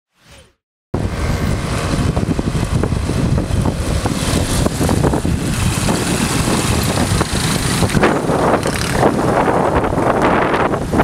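A brief faint whoosh, then about a second in, heavy wind rumble on the microphone over the running engines of many motorbikes and scooters riding slowly together.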